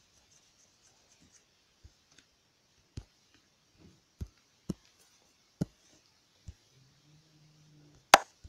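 Taps on a tablet's touchscreen: a handful of separate short taps spaced about a second apart, with one much louder, sharper click near the end.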